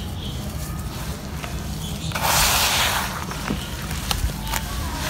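Hands squeezing and kneading wet, gritty mud in a plastic tub, with scattered small squelches and crackles. About two seconds in, a louder gritty rush lasts most of a second.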